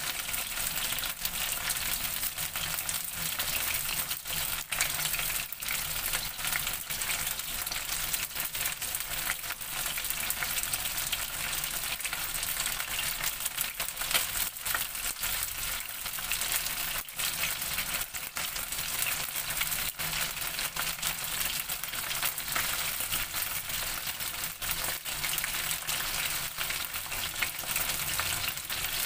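Floured chicken intestines deep-frying in hot oil: a steady sizzle with constant crackling pops, the pieces being fried for several minutes to dry out and turn crispy.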